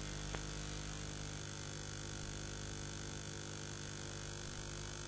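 Steady hum with a layer of hiss, unchanging throughout, with one faint click shortly after the start.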